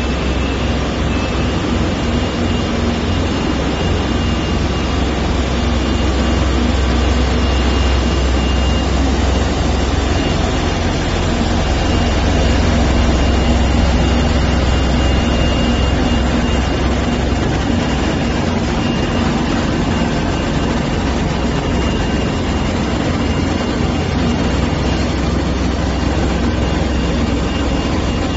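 Xingyi HTG Tank 1500 ride-on floor grinder running steadily as its grinding heads work the floor: a constant loud low hum over a dense hiss, with a faint steady high whine.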